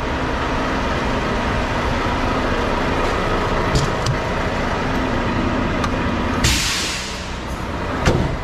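Volvo semi truck's diesel engine idling steadily, with a short hiss of released air about six and a half seconds in and a knock near the end.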